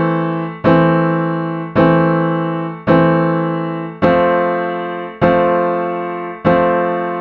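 Keyboard with a piano sound playing a three-note A minor chord (E, A, C), struck three times about once a second, then changing about four seconds in to an F major chord (F, A, C), struck three times; each chord fades before the next. Only the lowest note moves, from E up to F, while A and C are held in common.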